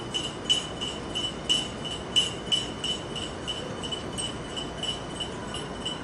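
A spoon stirring in a coffee cup, clinking against the side about three times a second with a light ring; the clinks grow fainter in the second half.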